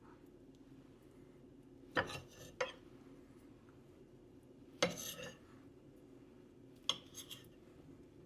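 A butter knife knocking and scraping against a dish in four short clusters of clinks, with a faint steady hum underneath.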